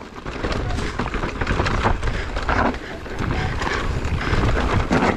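Mountain bike riding down a dirt singletrack: tyres rolling and crunching on the dirt, the bike rattling over bumps with a steady run of small clicks, and wind rumbling on the camera microphone.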